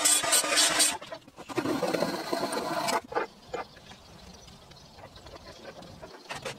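Handheld circular saw cutting through timber, stopping about a second in. A second, duller stretch of cutting noise follows and ends abruptly about three seconds in, then only faint light knocks.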